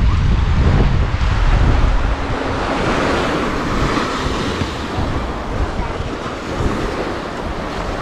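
Wind buffeting the microphone, heaviest in the first two seconds, over the steady wash of small waves breaking on a sand beach.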